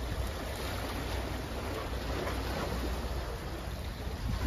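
Steady wind rumble on the microphone over the wash of the sea against a concrete tetrapod breakwater.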